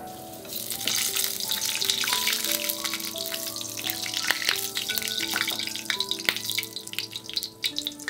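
Crushed garlic frying in olive oil in a frying pan: a steady sizzle full of small pops, starting about half a second in. Light background music plays over it.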